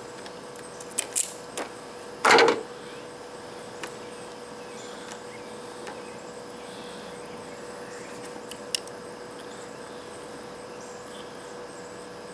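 Handling noise of small wire crimp connectors being fitted onto a stripped wire: two light clicks about a second in, a short louder rustle just after two seconds, and one more sharp click near nine seconds, over a steady faint hum.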